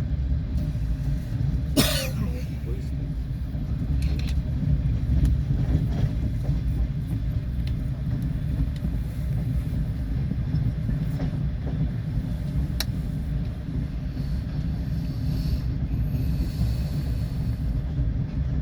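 Passenger train running at speed, heard from inside the carriage: a steady low rumble from the wheels and running gear. There is one sharp click about two seconds in and a few fainter ones later.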